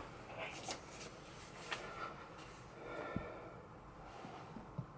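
Quiet stretch of faint breaths, soft rustles and a few light clicks close to the microphone as a hand moves over the guitar; no strings are played.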